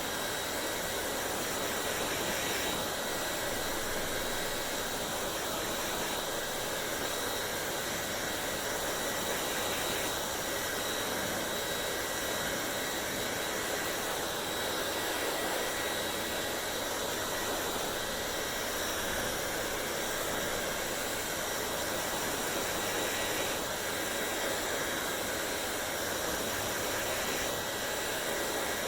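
Hair dryer running steadily: an even rush of blown air with a faint high whine from the motor.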